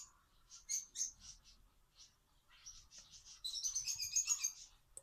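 Small birds chirping, with short high calls scattered throughout and a dense run of rapid twittering a little past halfway.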